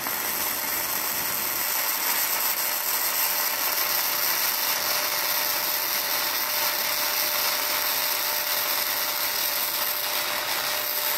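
Gasless flux-core MIG welding arc from a MultiPro MIG-MMA/TIG 160 inverter welder, running steadily without a break as one long bead of about 10 cm. The machine holds the arc on a 1300 W household electricity supply.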